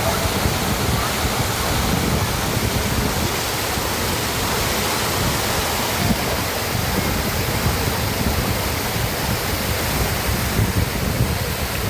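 Lake water spilling over its surplus weir (kalangal) in a steady, even rush.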